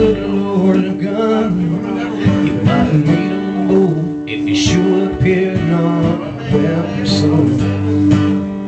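Live country band playing, with guitar strumming and held notes running on without a break.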